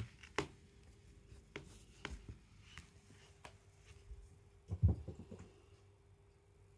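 A munchkin cat landing on a carpeted floor after leaping up for a tossed toy ball: a cluster of soft thumps about five seconds in, with scattered light taps and ticks before it.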